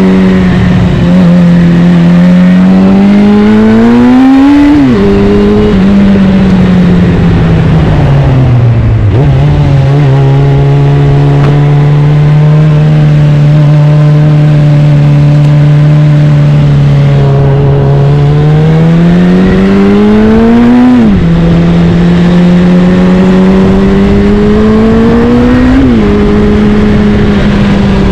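Suzuki Bandit 650's inline-four engine through an aftermarket Black Widow exhaust, heard from the rider's seat. It pulls up through the gears with three upshifts, each a climb in pitch and then a sudden drop. In between it eases off briefly and holds a steady cruise for several seconds.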